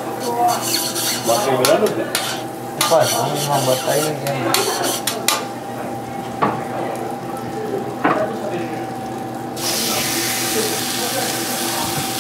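Kitchen work: metal utensils scraping and clinking against pots and pans in quick irregular strokes, then a steady hiss that starts suddenly near the end.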